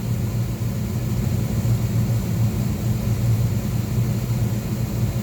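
Miller furnace's Beckett oil burner running steadily: the burner motor and blower hum evenly with the flame lit, running normally without cutting out.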